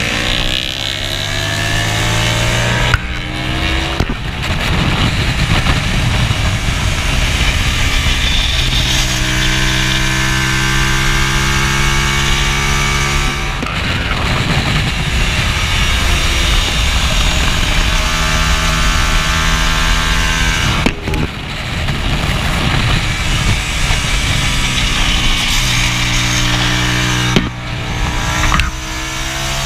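Hyosung race motorcycle's V-twin engine at full throttle on track, its note rising as it revs through each gear and breaking briefly at several gear changes, with wind rushing over a chest-mounted camera.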